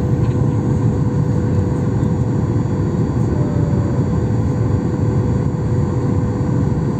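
Steady loud rumble of engine and airflow noise inside an airliner cabin during the approach to landing, with a faint steady hum running through it.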